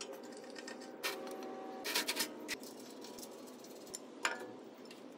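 A few sharp metallic clicks and taps from a hand handling the steel table bracket of a drum sander: one about a second in, a quick cluster around two seconds, and one more near the end. A steady low hum runs underneath.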